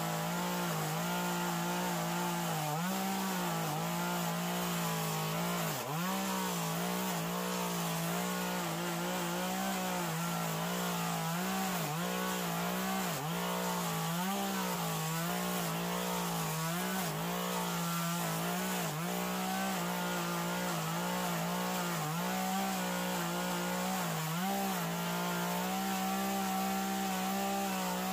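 Gas chainsaw running at high revs and cutting into western red cedar, its pitch dipping briefly several times as the chain bites into the wood.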